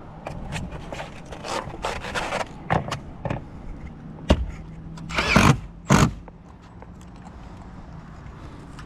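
Metal Z-bar trim being handled and set down on standing seam metal roof panels: scattered knocks and clicks of metal on metal, with two louder scraping sounds about five and six seconds in.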